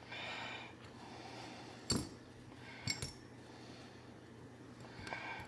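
Two sharp metallic clicks about a second apart as small parts of a Bear Edge pocketknife are handled and fitted back together, with a person breathing out at the start and again near the end.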